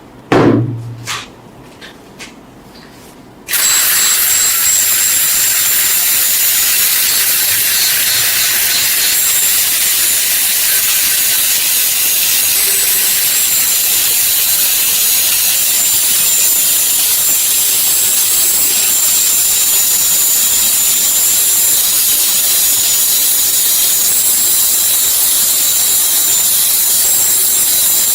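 A thump and a few clicks, then a power tool switches on about three and a half seconds in and runs steadily: a loud hiss with a high whine over it.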